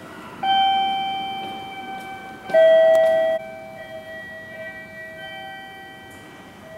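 Electronic bell-like chime at a railway station. One note is struck and fades, then a louder note about two seconds later is held briefly and cut off abruptly, with fainter chime tones lingering.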